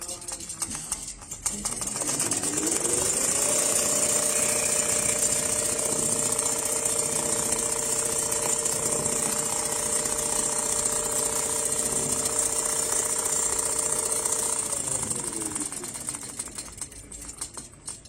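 Automatic CNC sewing machine running a stitching cycle: its motor speeds up about two seconds in, runs at a steady fast stitching pace, then slows down and stops near the end.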